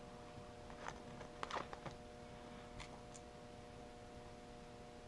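A few faint clicks and rattles of plastic electrical plug parts being picked up and handled, the busiest about one and a half seconds in, over a faint steady hum.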